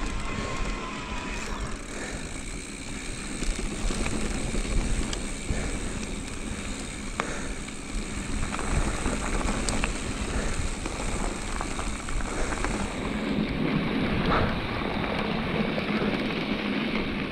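Mountain bike rolling quickly down a dirt trail: tyres crunching over dirt and gravel and wind rushing over the handlebar-mounted microphone, with scattered clicks and rattles from the bike.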